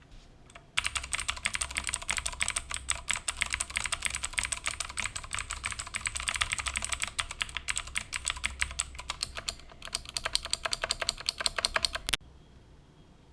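Fast typing on an Ajazz mechanical keyboard fitted with Outemu Silent White switches and a tape mod: a dense run of key strokes that starts about a second in and stops abruptly near the end.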